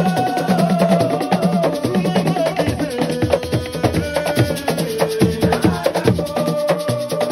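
Assiko music: fast, dense drumming with wood-block and shaker percussion under a sustained melody line that shifts pitch.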